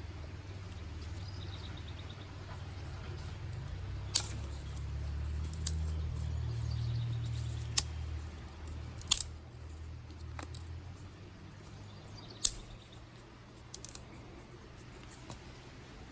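Dry sticks snapped by hand: sharp single cracks, about seven spread out, one doubled and a quick cluster near the end. A low rumble runs underneath and fades out about two-thirds of the way through.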